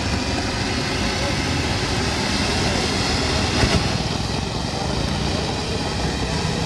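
Steady, loud outdoor din of people's voices over engine noise, with a single sharp pop a little after halfway through.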